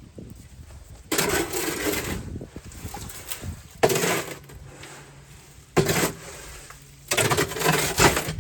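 Concrete being mixed by hand in a wheelbarrow: a tool scraping and churning through wet, gritty mix in four rough strokes, two long and two short.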